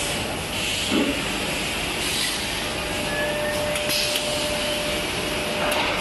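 Steady hissing machine noise of a chest-freezer U-shell sheet-metal forming line running, with a short knock about a second in and a faint thin whine through the second half.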